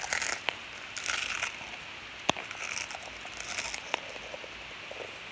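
Crunchy corn snacks, Cheetos and Flamin' Hot onion rings, being chewed close to the microphone: uneven bursts of crunching with a couple of sharp clicks.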